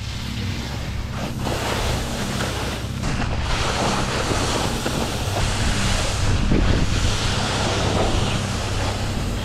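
Wind buffeting the microphone: a steady rushing noise that grows about a second and a half in, over a low sustained drone.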